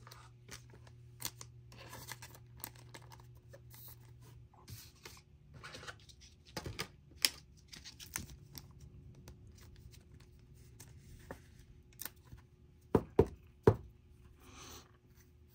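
Trading cards and foil pack wrappers being handled on a table: scattered rustling and light clicks, with a few sharper taps near the end.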